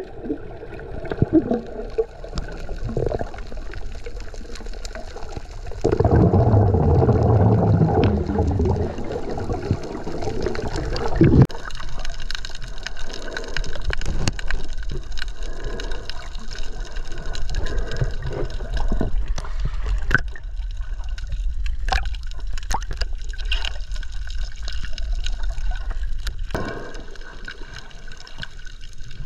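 Muffled water sloshing and gurgling around a GoPro's waterproof housing as it moves at and just below the sea surface, with scattered small clicks. A louder, lower rumbling stretch runs from about 6 to 11 seconds in.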